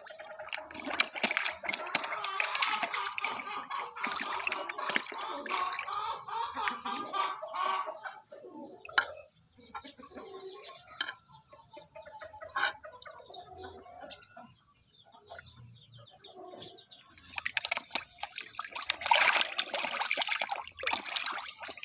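Fish splashing and slurping at the water surface as they snatch food from a spoon. The sound comes in two busy spells, one at the start lasting several seconds and another near the end, with scattered small splashes and clicks between them.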